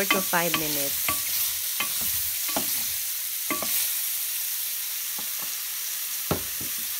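Button mushrooms sizzling in olive oil in a stainless steel frying pan, with a steady hiss and a few short scrapes and taps of a wooden spatula against the pan, the last one near the end.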